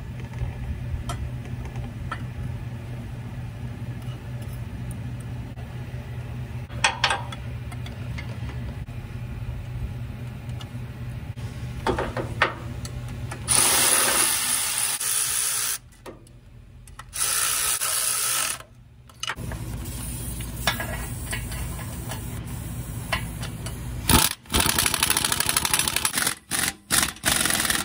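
Cordless electric ratchet running in several bursts of a second or two, driving in the bolts of a turbocharger oil drain tube. For the first half there is only a steady low hum and a few light clicks.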